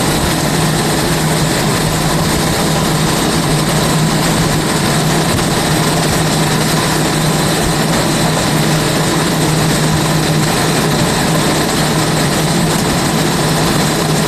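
Commercial dehumidifier and heavy-duty air-mover fans running steadily: a loud, even roar with a strong low hum, equipment drying out a flooded room.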